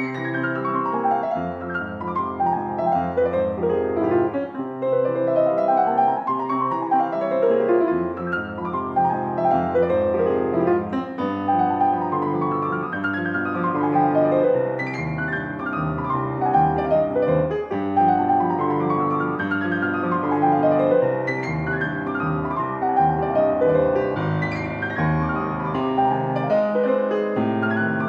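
Solo piano background music, flowing runs of notes that climb and fall over and over.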